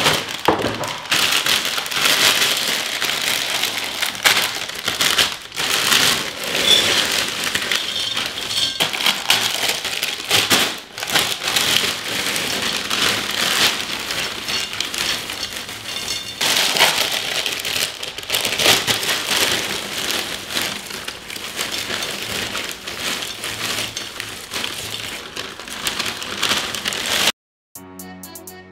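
Dry Cinnamon Toast Crunch cereal squares being poured from plastic bags into a glass bowl: a continuous dense rattling patter with brief pauses. Near the end it cuts off abruptly and music begins.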